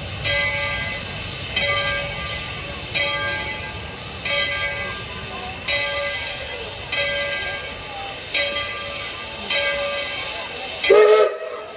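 Steam locomotive's bell ringing steadily, about one stroke every second and a half, over a low rumble and crowd chatter. A short, loud call cuts in near the end.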